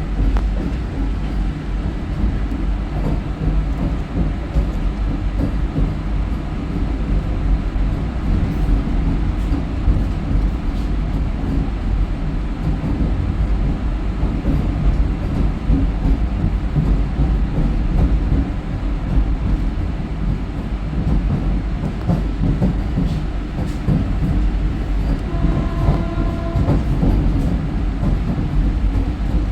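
Vande Bharat Express electric train running at speed, a steady low rumble with wheel-on-rail noise. A brief faint tone sounds a few seconds before the end.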